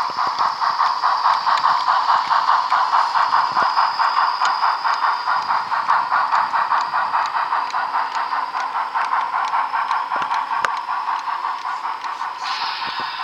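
HO-scale Milwaukee Road Mikado (2-8-2) model steam locomotive running, its sound playing a steady rhythmic steam chuff that slows slightly. A louder hiss comes in near the end.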